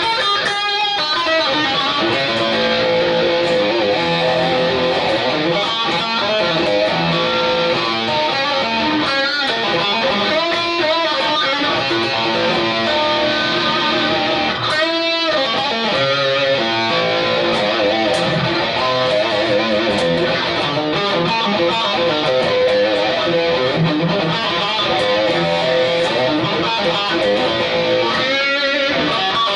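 A red 1990 Japanese BC Rich NJ Series electric guitar is played without a break, picked near the bridge, with a few sweeping passages about a second in, halfway through and near the end.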